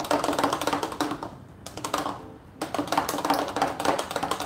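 A spoon stirring spiced buttermilk in a blender cup, clicking rapidly against the sides as the spices, chopped coriander and green chilli are mixed in. The clicking eases off twice briefly in the middle.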